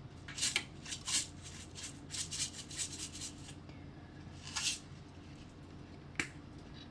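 A kitchen utensil scraping and rubbing against a pan in short, irregular strokes while roasted tomatoes are stirred and mashed into a sauce.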